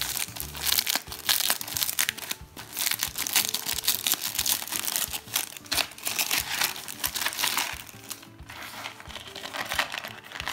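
Clear plastic wrapping on a charm bracelet's card package crinkling and crackling as hands peel and handle it, over background music.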